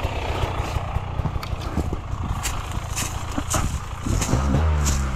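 Dirt bike engine running at low revs, taking on a steadier, stronger note about four seconds in as the throttle opens. Several sharp clicks and knocks sound over it.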